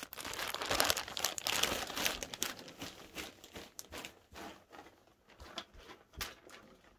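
Clear plastic bag crinkling and rustling as a jersey is pulled out of it. The crinkling is densest for the first few seconds, then thins to scattered rustles and clicks.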